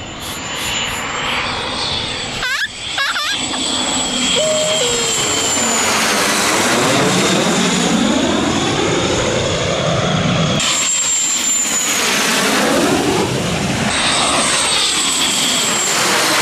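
Canadair CT-114 Tutor jets, each with a single J85 turbojet, passing low overhead one after another on landing approach with gear down: a loud, steady jet noise with a high whine that drops slightly in pitch as each aircraft goes by.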